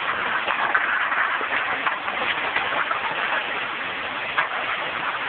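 Mining wash plant with its rocker running: a steady machine noise with many small rattles.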